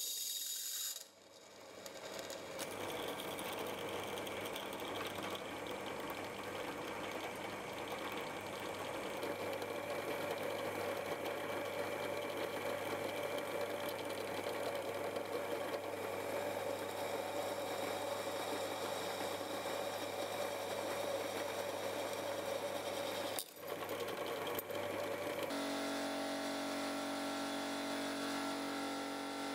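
Drill press running steadily, its bit cutting holes through an oiled AEB-L stainless steel knife blank. About 25 seconds in the sound changes abruptly to the steady drone of a vacuum pump drawing down a jar of stabilising resin.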